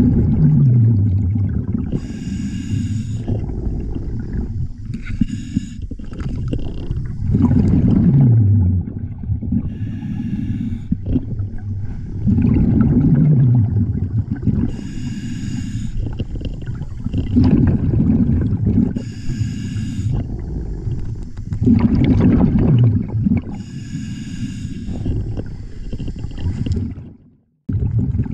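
Scuba diver breathing through an Apeks regulator, heard underwater. A hissing inhale through the demand valve alternates with a loud gurgling rush of exhaled bubbles, each with a low falling tone, about every five seconds. The sound cuts out briefly near the end.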